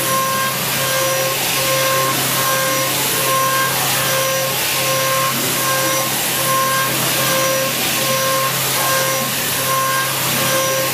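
Milling machine spindle running a four-flute FHPC100 end mill at 7,200 rpm through 50 HRC medium-carbon steel: a steady machining noise with a pitched whine that pulses on and off about twice a second as the cutter works around the part.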